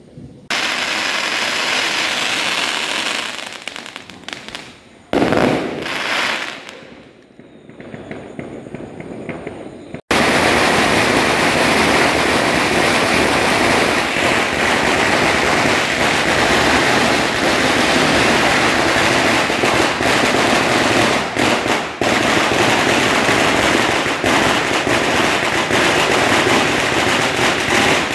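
Firecrackers going off in rapid strings of bangs. A dense crackle starts suddenly about half a second in and dies away, and another short burst follows a few seconds later. About a third of the way through it changes abruptly to an unbroken, rapid crackle of firecrackers.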